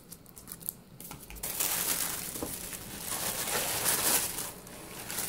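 Tissue paper crinkling and rustling as hands rummage through it. A few light taps come first, and the dense crinkling starts about a second and a half in and lasts most of the rest.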